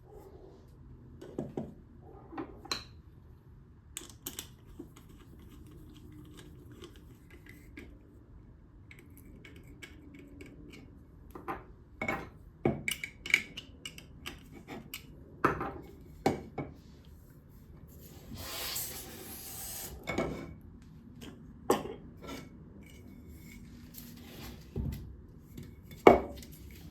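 Scattered clicks, taps and knocks of plastic and metal parts being handled as a roll of DTF film on its roller bar and plastic supports is fitted into the printer's roller bracket, with a brief burst of rustling about two-thirds of the way through.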